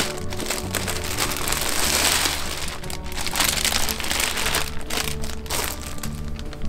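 Thin clear plastic bag crinkling and rustling in several spells as a T-shirt is pulled out of it, over background music.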